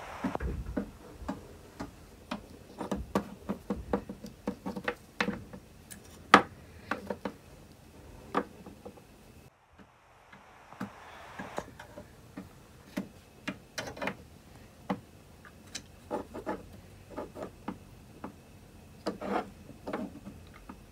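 Small toy pieces being handled and set down: irregular light clicks and taps, with a brief dead-quiet gap a little under halfway through.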